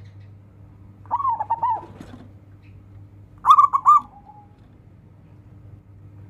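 Zebra dove (local perkutut) cooing: two short phrases of quick repeated coos, about a second in and again about two and a half seconds later, over a faint steady low hum.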